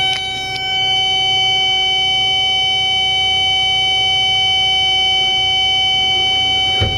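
Steady electronic warning tone in a Caterpillar 316E excavator's cab over its running diesel engine: the alarm that sounds while the quick coupler is set to unlock. A single knock comes near the end.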